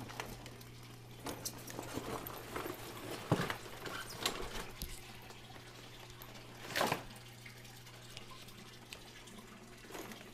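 Tap water running and splashing into a large aquarium as it fills, over a steady low hum. A sharp knock comes about three seconds in and a louder one about seven seconds in.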